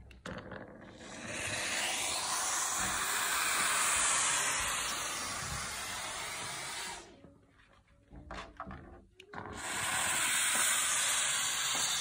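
Kärcher SV7 steam vacuum cleaner working a window with its window nozzle: a steady hiss of steam and suction. It cuts out for about two and a half seconds in the middle, with a few clicks, then starts again.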